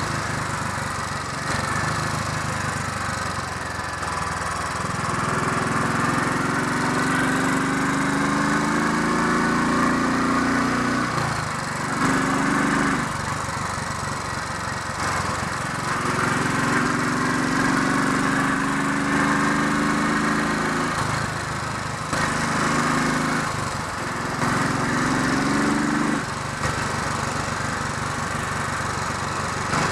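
Royal Enfield 500 Electra X single-cylinder engine running on the move, warming up, with wind rushing over the microphone. The engine note swells under throttle in long stretches and drops back in short breaks several times.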